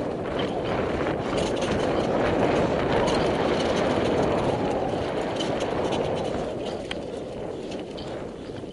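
Mountain bike descending a dirt trail at speed: a rushing noise of tyres and air, with sharp clicks and rattles from the bike. It swells over the middle few seconds and eases off near the end.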